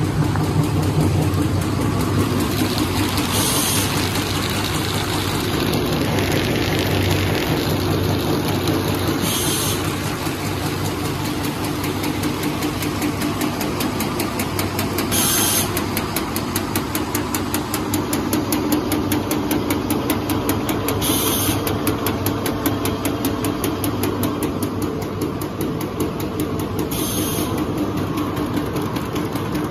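A C330 sharp V-bottom paper bag making machine running in production: a steady, fast mechanical clatter of its rollers and forming gear. A short hiss comes about every six seconds.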